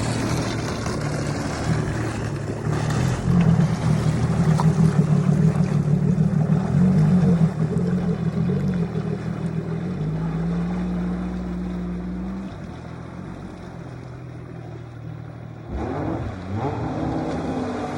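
Motorboat engine running, loudest through the first half, then settling to a steadier, lower note, with a brief drop near the end before it picks up again.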